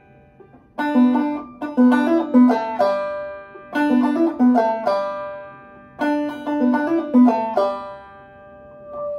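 Gold Tone open-back banjo played clawhammer style: a short lick of plucked notes, open string, drop thumb and hammer-on, played three times in a row with the notes ringing out.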